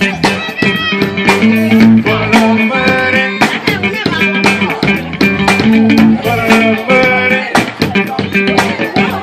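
Music playing loudly: a band song with guitar, bass and a steady beat.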